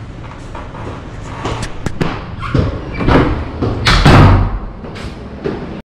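A room door being opened and shut, with a few sharp clicks and knocks and then a louder thud about four seconds in.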